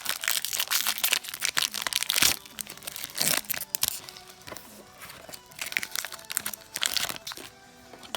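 A foil Pokémon booster pack wrapper crinkling and tearing as it is ripped open, dense for about the first two seconds, then a few shorter rustles; background music plays underneath.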